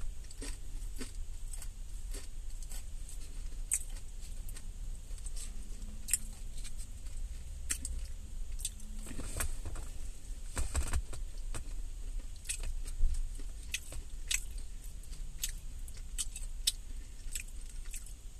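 Close-up eating sounds of a green salad: chewing with scattered short, sharp mouth and fork clicks at about one or two a second, a few louder ones about ten seconds in, over a low steady rumble inside a car.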